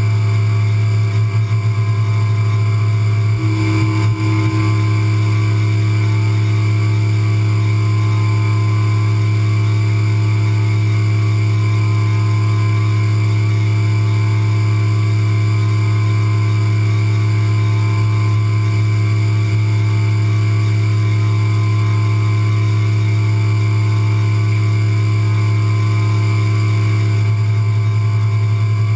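CNC milling machine spindle running steadily as a small cutter engraves into a metal part under a coolant jet: a steady hum with a higher tone that comes in a few seconds in and drops out near the end.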